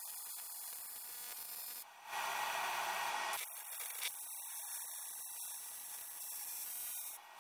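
TIG welding arc hissing and buzzing steadily while a small vacuum barb is welded onto an aluminium pipe. The arc breaks off briefly about two seconds in and again near the end.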